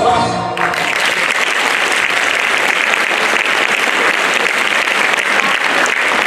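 An audience applauding steadily after the end of a folk-dance number, whose music stops about half a second in.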